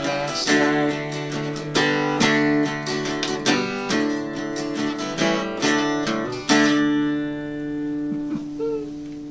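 Acoustic guitar strummed and picked in chords. About two-thirds of the way through, one chord is struck and left to ring, fading slowly.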